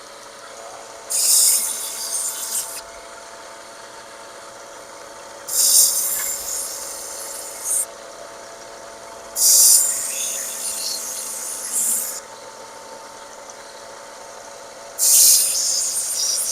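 A motor-driven grinder runs steadily while the steel edge of an M1 bayonet blade is pressed against it in four passes of about two seconds each, a harsh high grinding each time. The passes reshape an edge that an earlier owner had ground crudely.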